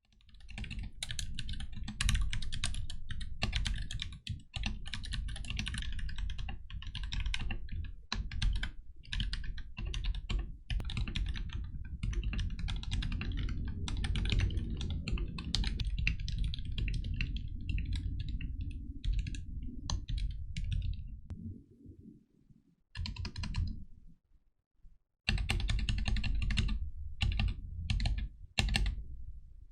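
Typing on a Tecware B68 mechanical keyboard with lubed, filmed Gateron Black linear switches, lubed stabilizers and PBT keycaps. Steady rapid keystrokes on the letter keys give way, about 21 seconds in, to separate presses and short runs on the modifier keys with pauses between.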